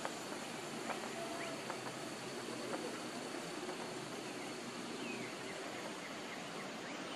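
Steady outdoor background hiss with a few faint, short bird chirps and light clicks.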